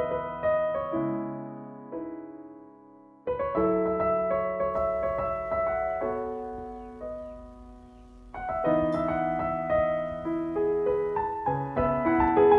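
Solo piano music with held chords under a melody; the notes die away twice, about three seconds in and again past the middle, before new phrases begin.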